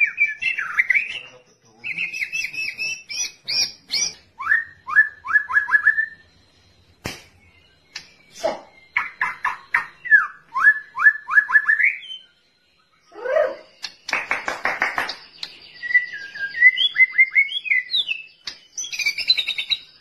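White-rumped shama singing a varied song of clear whistles, trills and quick runs of falling notes, about five a second, separated by short pauses, with a harsh burst about two-thirds of the way through.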